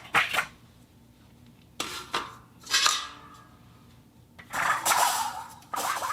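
Iron plate and wire netting scraped and knocked together: a few short metallic scrapes and clanks, one of them ringing briefly, then longer rasping scrapes near the end.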